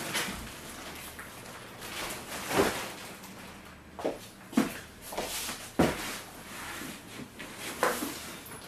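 A large cardboard box being handled and climbed in and out of: cardboard rustling with about five sharp knocks and thumps spread through it.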